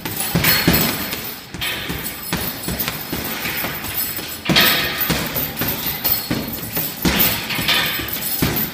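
Boxing gloves striking a hanging heavy punching bag in rapid, irregular combinations of thuds.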